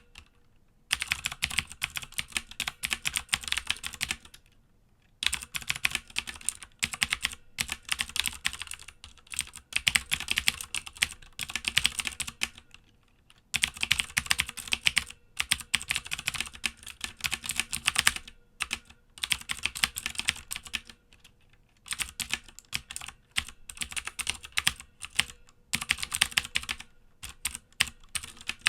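Typing on a Filco Majestouch 2 mechanical keyboard with unlubricated Cherry MX Blue clicky switches: rapid, crisp keystrokes in runs of several seconds, broken by short pauses.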